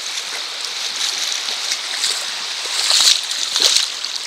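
Shallow creek water flowing steadily over a flat rock bed, with two louder splashes about three seconds in as wading boots move through the water.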